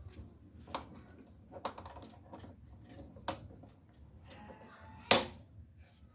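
A few separate sharp taps and knocks of hand work, spaced a second or two apart, the loudest about five seconds in.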